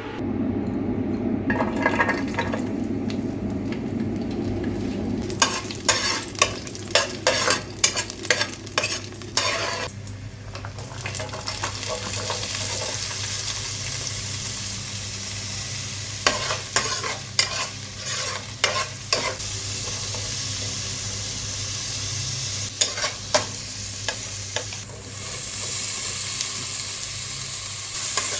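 Food sizzling as it fries in a pan, with a utensil stirring and clicking against the pan in several quick runs. The sizzle grows louder near the end.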